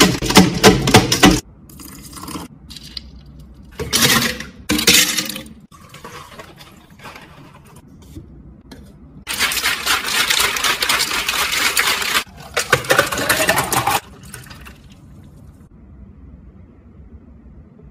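Lemon and ice pounded with a muddler in a plastic shaker cup, a fast clattering that stops about a second and a half in. After two short bursts of clatter, ice rattles steadily in a shaken cocktail shaker for about five seconds, then stops.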